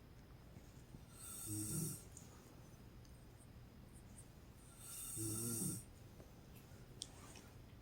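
A woman snoring in her sleep: two snores about four seconds apart, each swelling for about half a second with a pitched rasp and then stopping short.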